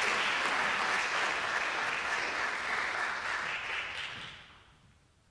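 Audience applauding, fading away about four and a half seconds in.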